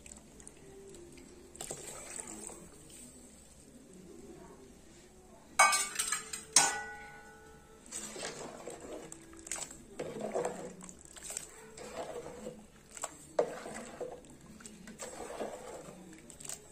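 Steel utensils clanking sharply against a metal cooking pot twice, ringing after each strike, then a steel ladle stirring and scraping through the pot of coconut milk and jaggery syrup.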